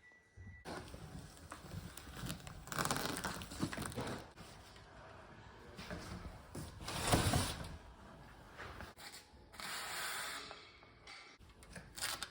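Bike shipping box and packaging being unpacked by hand: irregular tearing and rustling, with the loudest tear about seven seconds in.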